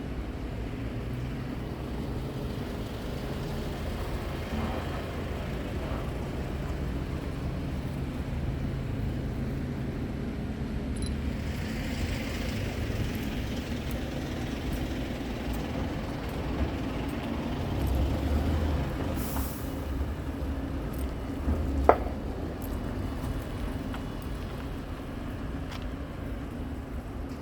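Scania R tractor unit's diesel engine running steadily, with a short hiss of air about halfway through and a single sharp knock near the end.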